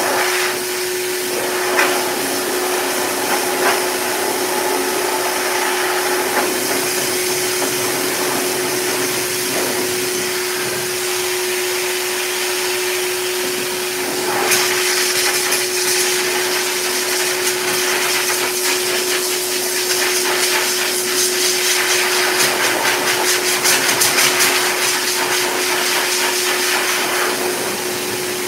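K9 heavy-duty dog dryer running steadily: a constant motor hum under a rush of forced air. About halfway through the air blast grows louder and hissier, and near the end it flutters rapidly.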